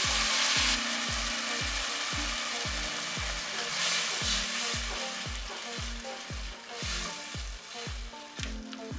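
Water poured into a hot pot of sautéed onion, mashed potato and beetroot sizzles loudly at first, then a spatula stirs the mixture as it keeps hissing, with another loud burst of sizzling about four seconds in. Soft background music with a steady beat runs underneath.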